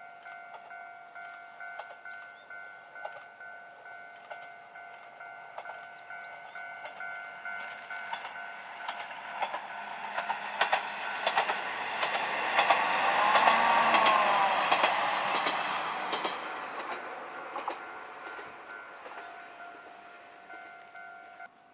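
Diesel railcar passing on the Jōsō Line, growing louder to a peak about two-thirds of the way through and then fading, with its wheels clicking over the rail joints and a tone that bends up and back down as it goes by.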